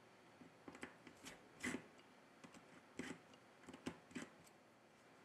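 Faint, scattered clicks and scrapes of a small precision screwdriver working the tiny screws and metal bracket inside an opened phone. There are about a dozen short ticks, the loudest a little under two seconds in and again at three seconds.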